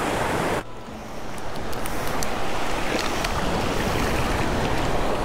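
Surf washing up and breaking on the beach, a steady rush that drops away suddenly about half a second in, then builds again.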